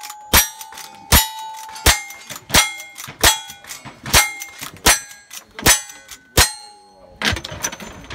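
Lever-action rifle firing nine shots about three-quarters of a second apart, each followed by the ring of a struck steel target. Softer clicks between the shots as the lever is worked.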